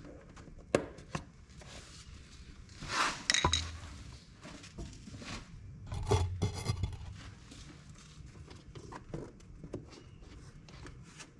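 Hands and tools working at an ATV's air box: scattered clicks and knocks, with two louder scraping, rubbing stretches about three seconds in and again about six seconds in.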